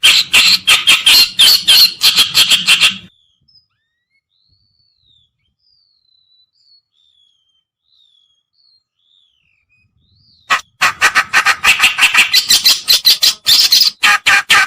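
Kerakbasi reed warbler song played as a lure call: loud, harsh, rapid chattering notes, which break off about three seconds in. A few faint, thin whistled slurs follow before the fast chatter starts again near the end.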